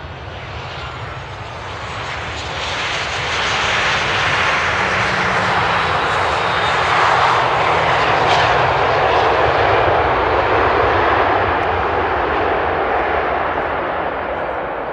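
A NATO military aircraft's engines as it flies past on its approach to land. The noise builds up, is loudest around the middle, then fades away.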